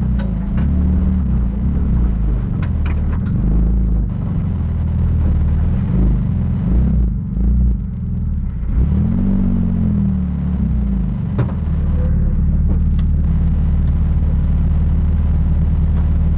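Porsche 997 GT2's twin-turbo flat-six heard from inside the cockpit, running at low revs as the car creeps along. The revs rise and fall a little a few times, most clearly about nine seconds in, then the engine settles into a steady idle from about twelve seconds in.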